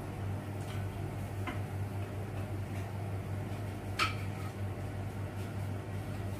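Faint metal clicks of a knife blade tapping against a wire spider strainer as fried doughnuts are lifted out of the oil, one sharper ringing click about four seconds in, over a steady low hum.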